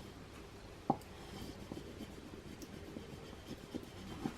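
Faint scraping of a squeegee burnishing transfer tape and vinyl onto a cutting board, pressing the design down so it sticks, with a small click about a second in.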